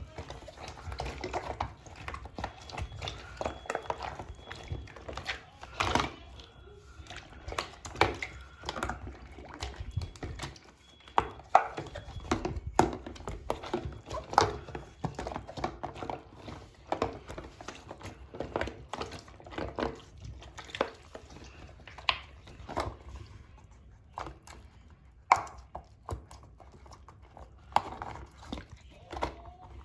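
Fidget toys handled and popped in water: a steady run of irregular clicks, pops and knocks with light watery sloshing.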